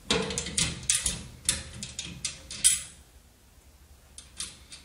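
Clicks and knocks of steel wheelbarrow parts being handled as a bracket, washer and fastener are fitted onto a bolt on the handle frame: a quick run of sharp knocks over the first three seconds, then a few lighter ticks near the end.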